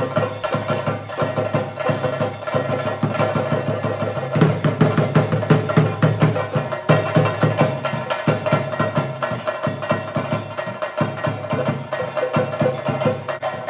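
Chenda drums beaten with sticks in fast, dense rolls, with a steady ringing tone sounding over the drumming. The drumming swells louder for a few seconds near the middle.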